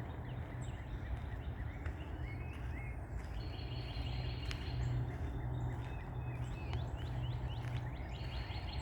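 Several songbirds chirping and calling in short, repeated notes, over a steady low background hum.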